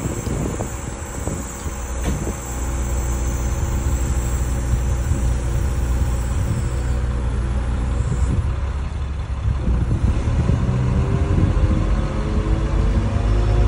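Heavy diesel engine running with a low rumble, its pitch rising as it revs up over the last few seconds.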